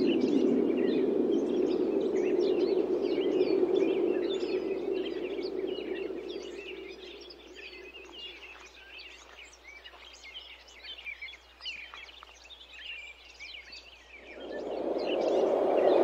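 Wind gusting, easing off to a lull about halfway through and picking up again near the end, with small birds chirping throughout.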